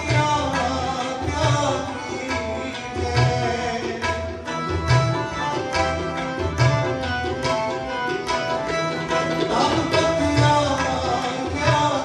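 Tabla playing a rhythmic pattern over sustained harmonium chords in Sikh shabad kirtan music. Deep bass strokes of the left-hand drum recur about every second and a half.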